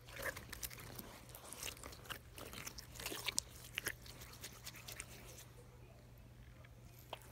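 Glitter slime being squeezed and stretched by hand, giving off a run of small sticky clicks and squelches that thin out after about four and a half seconds.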